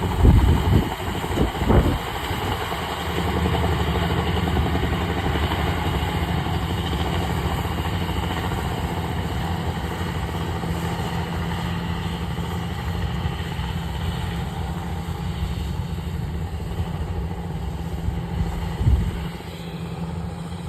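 Yanmar 82 combine harvester running steadily as it cuts standing rice, its engine and threshing machinery making a continuous drone. There are a few heavy low thumps in the first two seconds and one more near the end.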